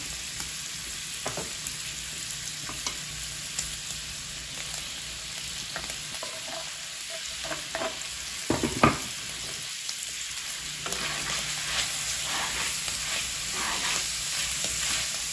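Ground pork and chopped onion sizzling in lard on a cast-iron griddle, a steady frying hiss. Scattered small clicks run through it, with one louder knock about nine seconds in.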